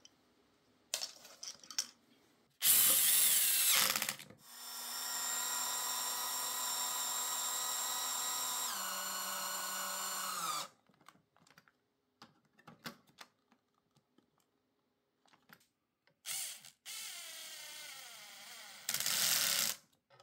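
Cordless drill drilling through a 3D-printed motor plate into an electric scooter's deck, in several bursts. The longest run is a steady whine of about six seconds whose pitch drops near its end as the bit bites. Small clicks and handling knocks come between the runs.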